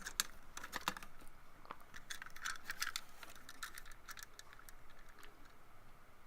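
Light clicking and rattling of plastic as the 1970 Hot Wheels Tune-Up Tower's Dyno-Meter head unit is pushed out of the tower housing. The clicks crowd the first three seconds and thin out after that.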